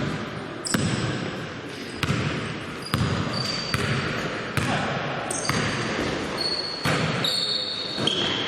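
A basketball bouncing on the court, about one bounce a second, with short high-pitched sneaker squeaks between the bounces.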